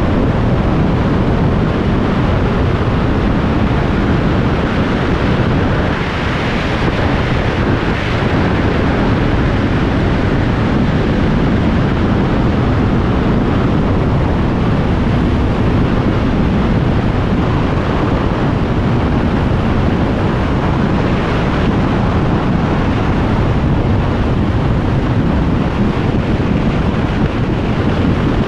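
Steady, loud wind noise on the camera microphone of a motorcycle ridden at motorway speed, an even rush with no clear engine note above it.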